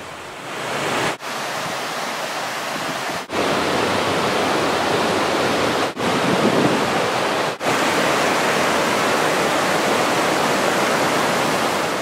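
Rushing water of the cascades on New Years Creek: whitewater pouring over rock in a steady rush. It drops out briefly four times, and its loudness shifts slightly after each break.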